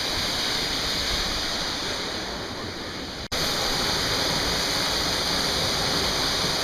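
Waterfall rushing steadily, a continuous even roar of falling water. About halfway through it cuts out for an instant and resumes at the same level.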